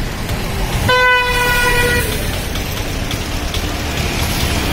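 A road vehicle's horn honks once for about a second, a steady single note, over the constant rumble of street traffic.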